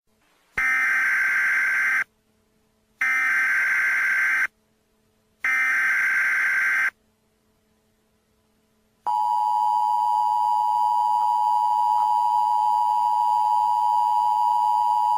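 Emergency Alert System SAME header: three bursts of screeching digital data, each about a second and a half long with short gaps between. About nine seconds in comes the steady two-tone EAS attention signal, marking the start of a new alert.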